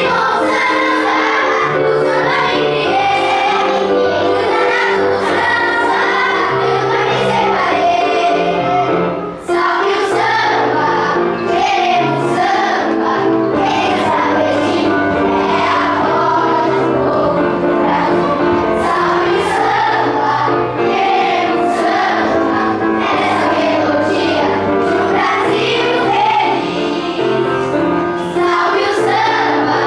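A children's choir singing a samba song in unison over instrumental accompaniment with a bass line and a steady beat, with a brief drop in level about nine and a half seconds in.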